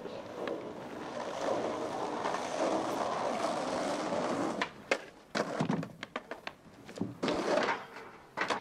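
Skateboard wheels rolling on asphalt, a steady rumble that grows louder over the first four seconds. Then comes a run of sharp clacks as the board's tail and deck strike the ground and ledge during tricks.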